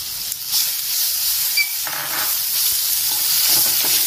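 Grated raw mango frying in hot oil with peanuts and dals: a sizzle that swells about half a second in as the mango hits the oil, with a wooden spatula stirring it around the pan.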